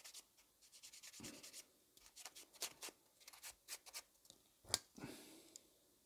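Faint, quick scratchy strokes of a small sanding tool on a plastic model-kit part, cleaning up the part's edges. The strokes come in short runs, with a sharper click a little before five seconds in.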